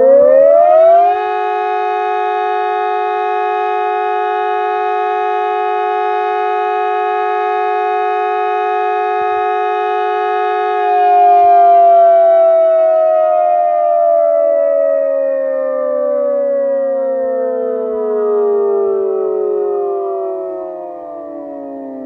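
Digitex DSE-2400S electronic civil-defence siren sounding the steady 'Probe' test tone: a loud chord of several pitches, held level for about ten seconds. Near the halfway point it begins a slow downward glide, the simulated wind-down of the test signal, which is still falling at the end.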